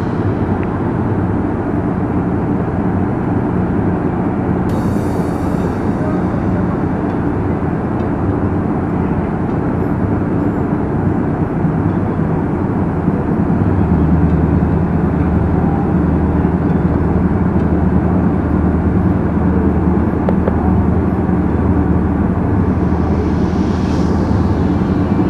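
Diesel engines of a Ro-Ro passenger ferry running, a deep steady hum that gets louder about halfway through.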